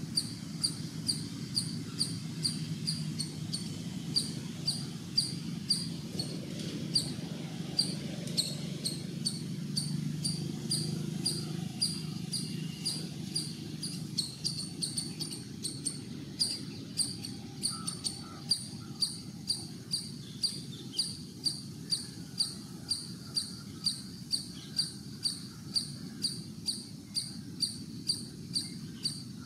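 A live cricket chirping steadily: short, high, evenly spaced chirps, about two and a half a second, over a low, steady background rumble.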